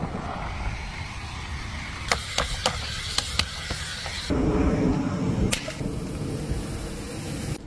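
Steady rushing noise with a scatter of sharp clicks and snaps, about six of them, several close together a little over two seconds in; the rush grows heavier and lower about four seconds in.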